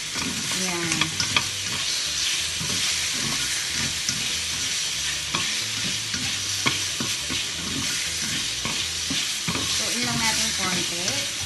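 Sliced chicken breast and Chinese sausage sizzling in hot oil in a stainless-steel wok, with a wooden spatula scraping and knocking against the pan as it is stirred.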